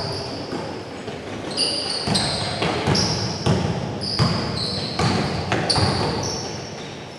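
Basketball bouncing on a gym floor in an irregular string of dribbles, with short high sneaker squeaks as players run.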